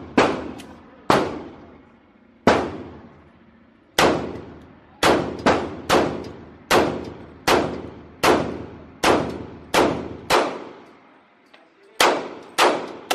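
Pistol shots echoing in an indoor range: about fifteen shots in an uneven string, mostly from a Glock 23 in .40 S&W, with shots from other lanes mixed in. Each shot rings out and dies away in the hall.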